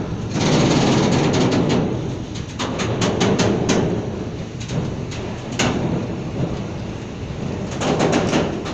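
A train running on the rails: a loud, heavy rumble with runs of sharp clicks from the wheels passing over rail joints and points, one run about three seconds in and another near the end.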